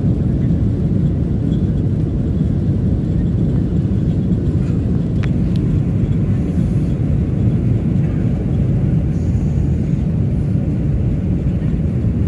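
Steady low rumble of a jet airliner's engines and airflow heard from inside the passenger cabin, with one brief click about five seconds in.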